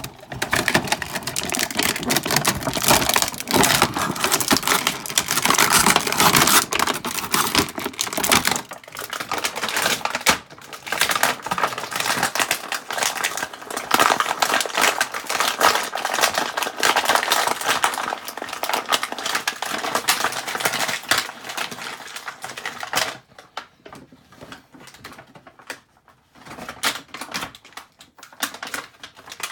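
Plastic blister packaging and toy pieces being handled as Bakugan figures and cores are popped out of their trays: a dense, irregular clatter of plastic clicks and crackles that thins to scattered clicks near the end.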